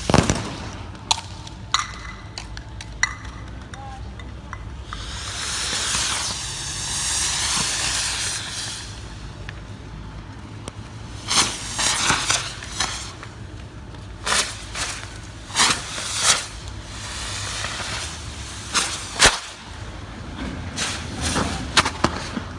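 Tear gas being fired at a street protest: a loud bang at the start, then scattered sharp cracks and pops. A rushing hiss rises and fades over a few seconds near the middle, and clusters of loud sharp bursts come in the second half, as canisters land and spew gas.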